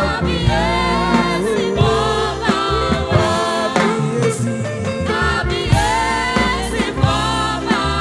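Gospel praise music: sung phrases with a choir over a steady bass line and drums.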